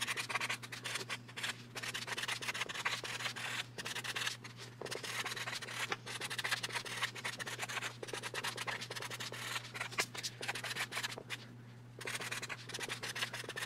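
Fine-point Sharpie marker scratching across card stock as a note is handwritten, in many quick short strokes, with a short pause about eleven seconds in.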